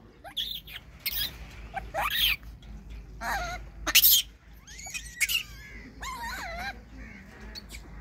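Macaques in a chain-link enclosure: a few short calls whose pitch slides up and down, mostly in the second half, mixed with sharp knocks and rattles of the wire fence as a monkey climbs and jumps on it, the loudest about four seconds in.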